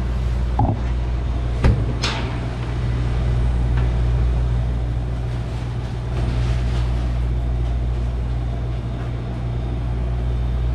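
Steady low droning hum of commercial kitchen equipment, with a couple of light knocks about one and two seconds in.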